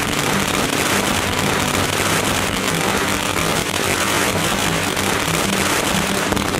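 Bundled strings of small mirchi firecrackers exploding together in a rapid, unbroken barrage of sharp cracks.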